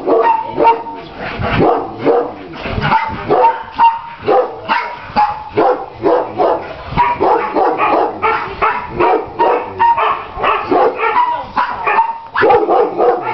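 Shelter dogs in their kennels barking over one another without pause, several barks a second.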